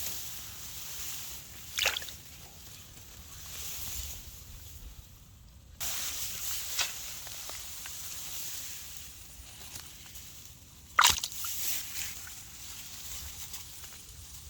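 Water sloshing and splashing in shallow water, with two sharper, louder splashes, one about two seconds in and one about eleven seconds in, over a steady hiss.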